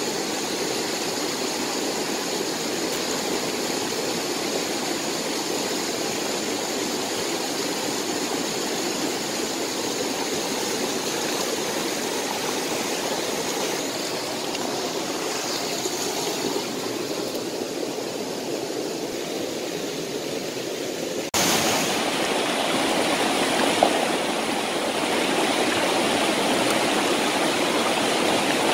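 Shallow stream water flowing steadily over rocks. About 21 seconds in, it cuts to louder rushing river water.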